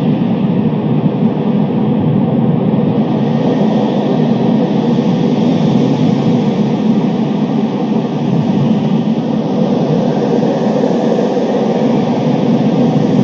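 Storm wind blowing hard and steadily, a dense rushing noise heaviest in the low range, swelling slightly now and then.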